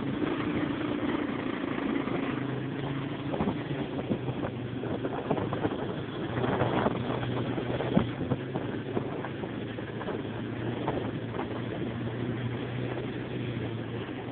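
Yamaha Warrior ATV's single-cylinder four-stroke engine running at a steady pitch on a rough dirt trail, with knocks and rattles from the bumps, the loudest about eight seconds in. Heard through a handheld phone's microphone.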